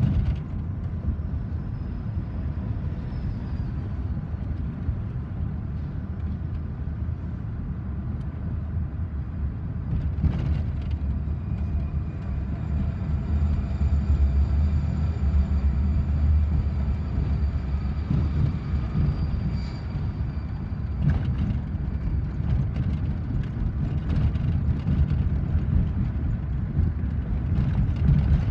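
Steady low road rumble of a car driving, heard from inside the cabin, with a few faint thin high tones over it and an occasional brief knock.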